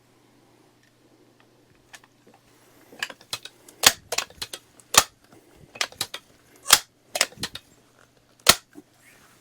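Crosman 1400 .22 multi-pump air rifle being worked: a run of sharp clacks and snaps from the bolt and pump lever as it is loaded, pumped and fired. They come about a second apart, beginning about three seconds in.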